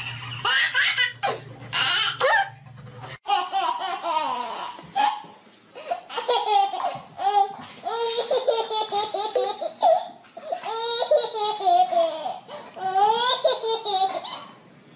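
Baby laughing in repeated bursts of belly laughter. A low steady hum sits under the first three seconds and stops abruptly.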